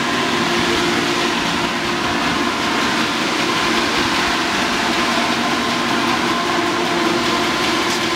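Running Green Fuels FuelMatic biodiesel processor: a steady mechanical hum with several held tones over a broad, even noise.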